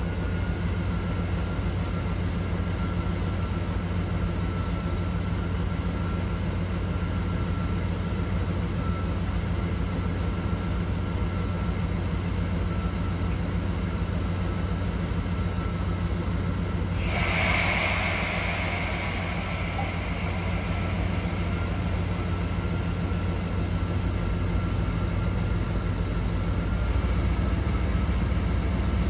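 DE10 diesel-hydraulic locomotive idling with a steady low engine drone. A little past halfway, a sudden loud hiss of released air breaks in and fades away over a few seconds.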